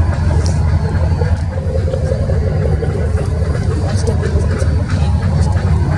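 Steady low rumble of boat engines running, with people talking faintly over it.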